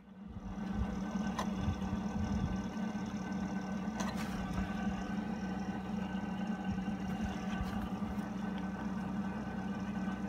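A steady low mechanical hum, like an engine or motor idling, starting a moment in.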